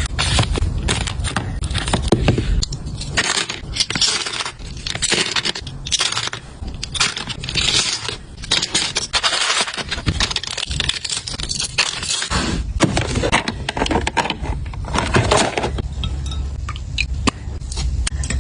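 Continuous handling noise while items are unpacked and organized into a small storage cart: plastic packaging crinkling and rustling, objects scraping, with scattered clicks and light clinks as things are set down.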